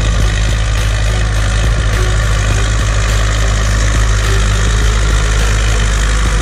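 Zetor 6911 tractor's four-cylinder diesel engine running steadily under load while pulling a disc harrow through ploughed soil.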